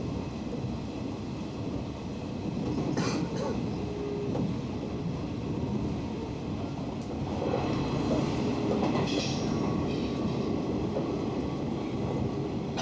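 Hanshin Railway electric train running at speed, heard from inside the passenger car: a steady rumble of wheels on rail, with a sharp clack about three seconds in.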